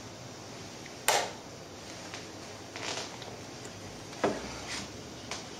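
Hands handling fruit and a paper card on a wooden shelf: a handful of separate knocks and rustles, the loudest about a second in, with another sharp knock near the end.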